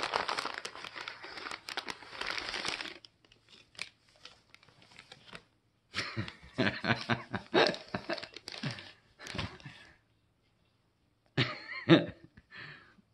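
Packaging being torn open and crinkled by hand: a long stretch of crackly tearing and crumpling, then scattered rustles and handling clicks. Near the end comes a short laugh.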